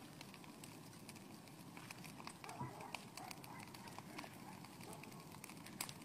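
Burning brush pile crackling faintly, with scattered small pops and snaps.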